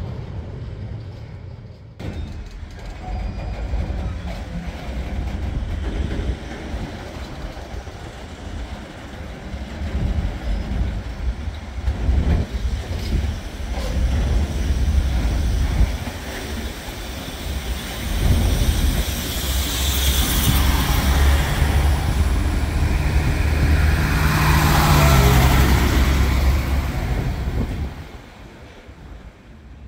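Freight wagons rolling past on the track, then a regional passenger railcar approaching along the station track. Its wheels and engine grow louder, are loudest in the last third, and fall away sharply near the end.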